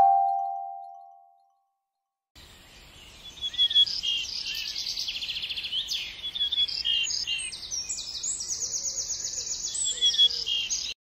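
A bell-like chime note fades out over the first second. After a short gap, many birds chirp and call together in a busy chorus of rapid, repeated chirps and trills.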